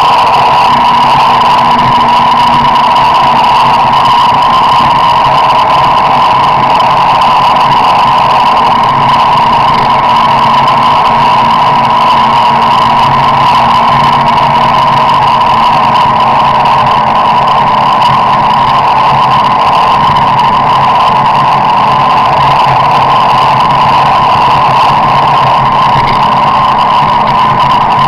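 Steady, loud drone of a car being driven, engine and road noise heard from inside the cabin, unchanging throughout.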